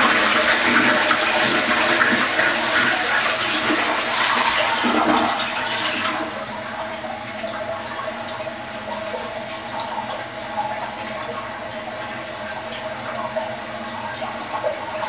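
Toilet flushing: a loud rush of water for about six seconds, then a quieter steady flow of water as the tank refills.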